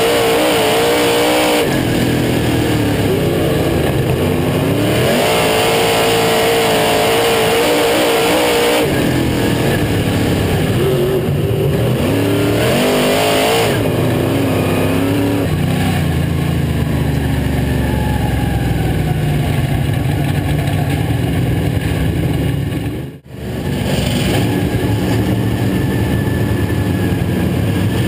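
Onboard sound of a dirt modified race car's V8 engine at racing speed, its pitch climbing on the straights and falling off into the corners several times, then running lower and steadier. The sound briefly drops out about three-quarters of the way through.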